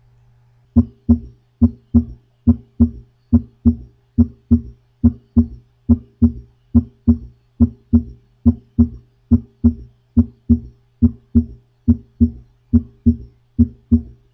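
Recorded heart sounds: a steady lub-dub rhythm, two beats per cardiac cycle, about 70 cycles a minute, starting just under a second in.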